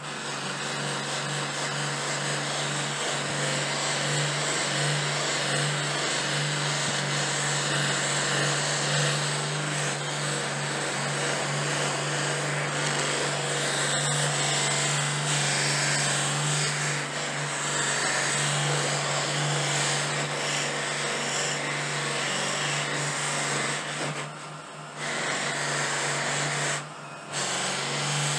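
Bench buffing machine running, its buffing wheels spinning while a briar pipe and a bar of wax are pressed against them to wax the finish: a steady hum under a broad rushing noise that briefly drops away twice near the end.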